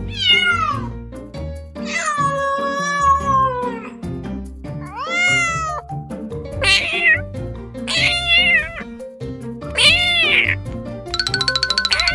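Kitten meowing six times, high, drawn-out calls that fall or arch in pitch, over background music. Near the end a fast, even buzzing pulse comes in.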